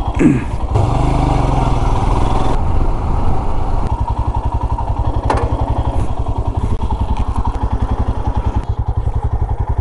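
Royal Enfield Himalayan's single-cylinder engine running with a fast, even thump of firing pulses. It is louder and busier for the first couple of seconds, with a short falling sweep at the start, and there is a sharp click about five seconds in.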